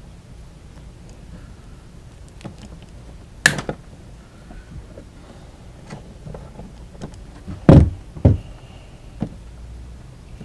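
Scattered knocks and clicks of hand work on the trolling motor mount as parts and wiring are cut away: a sharp click about a third of the way in, then two heavier knocks about half a second apart near the end, with a few faint ticks between.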